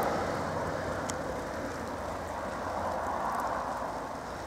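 Cars driving slowly past on a snow- and slush-covered road: a steady tyre hiss that fades over the first seconds and swells again about three seconds in.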